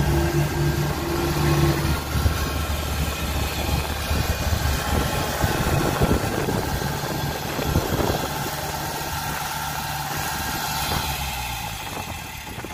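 Diesel engines of a Komatsu D20P crawler dozer and a dump truck stuck in soft ground, running under load as the dozer pushes the truck out, with a few sharp knocks. The engine note is strongest in the first two seconds, turns rougher, then settles and drops off near the end.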